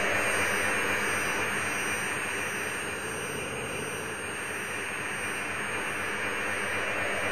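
Electronic sound-design drone: a dense, airy hiss over a low hum that eases off in the middle and swells back up toward the end.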